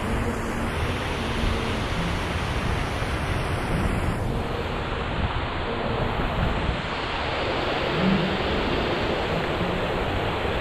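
Steady rush of river water spilling over a concrete weir, with wind buffeting the microphone.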